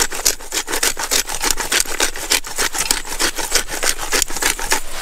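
Hand pepper mill grinding peppercorns: a rapid, even run of gritty clicks, many a second.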